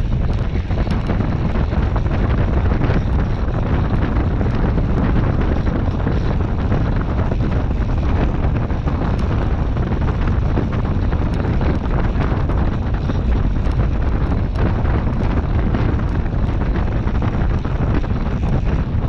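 Steady wind noise on a handlebar-mounted camera's microphone as a track bicycle rides at speed, heaviest as a low rumble.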